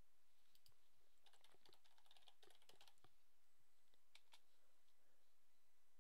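Faint computer keyboard typing: a quick run of keystrokes as a word is typed into a search box, with a couple of single clicks about four seconds in.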